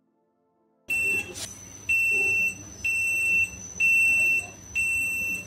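Onboard buzzer of an Arduino flood-detection board beeping a high-pitched alarm about once a second, each beep a little over half a second long, starting about a second in: the float sensor has signalled a high water level and the flood alarm has been raised.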